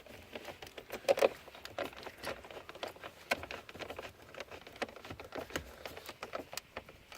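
Scattered light clicks, taps and rustles of small parts being handled, as plastic dashboard trim and screws are moved about by hand.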